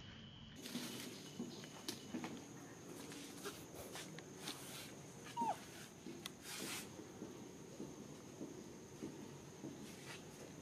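Baby macaque giving a short, thin whimpering squeak, with soft clicks and scuffs of the monkeys moving and handling food. A steady high-pitched whine runs behind.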